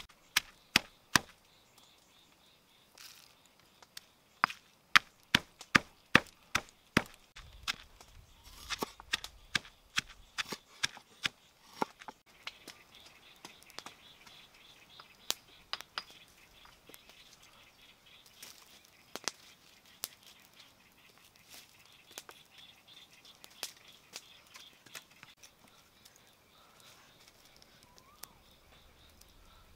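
Sharp chopping knocks, struck in quick runs a few tenths of a second apart, busiest in the first twelve seconds and sparser after, with a couple of faint bird chirps near the end.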